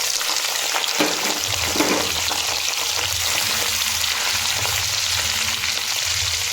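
Paneer cubes frying in hot oil in a kadhai, a steady loud sizzle, with two short knocks about one and two seconds in.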